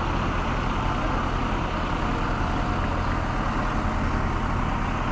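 A heavy vehicle engine running steadily at an unchanging speed.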